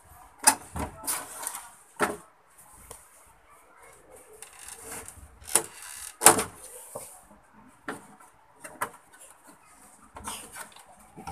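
Scattered knocks, clicks and rustles of hands handling the wiring and plastic cabinet of an opened CRT television, with the sharpest knocks about half a second in and about six seconds in.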